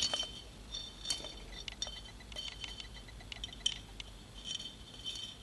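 Light metallic clicks and scrapes of a thin steel rod being worked into the small hole in the face of a welded steel bolt, metal tapping and rubbing on metal at irregular moments.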